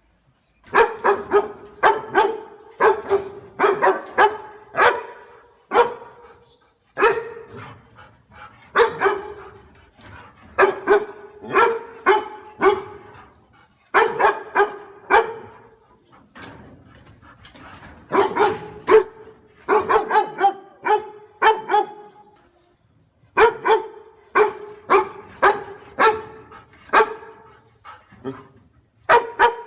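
A dog barking over and over in quick runs of several sharp barks, with short pauses between the runs.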